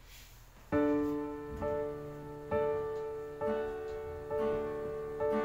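Digital piano opening a hymn accompaniment with chords struck about once a second, each ringing out before the next, starting about a second in after a near-quiet moment.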